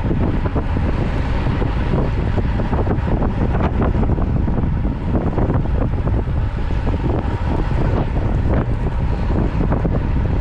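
Wind buffeting the microphone of a rider on a moving road bicycle: a steady low rushing roar.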